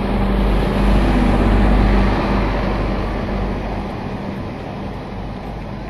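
Recording of a conventional combustion-engine truck driving past at constant speed, heard from outside, played back over loudspeakers. A deep, steady engine drone swells to its loudest about two seconds in, then slowly fades as the truck passes.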